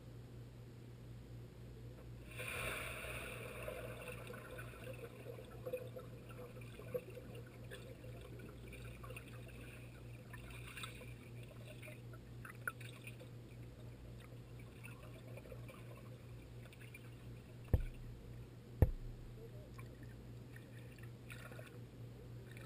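Muffled underwater sound of a swimming pool, heard through a submerged GoPro: a steady low hum, with a swell of splashing and bubbling about two and a half seconds in as swimmers enter the water, then scattered gurgles. Near the end come two sharp knocks about a second apart.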